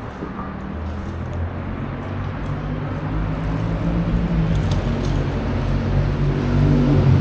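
Street traffic with a motor vehicle's engine running low and steady, growing steadily louder as it draws near.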